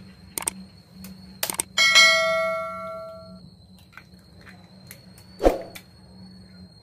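A subscribe-button sound effect: a few quick mouse clicks, then a bright bell ding about two seconds in that rings out and fades over about a second and a half. A single dull knock follows near the end.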